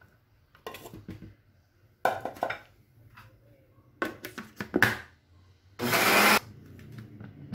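Plastic-jar countertop blender run in one short pulse of about half a second near the end, blending ricotta into condensed milk. Before it come a few short knocks and clatters as the jar and its lid are handled.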